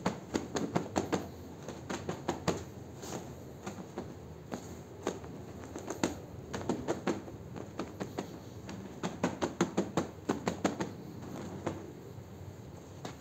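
Stiff-bristled push brush scrubbing a soapy, soaked carpet, back-and-forth strokes through thick foam. The strokes come in quick runs of several a second, with short pauses between runs.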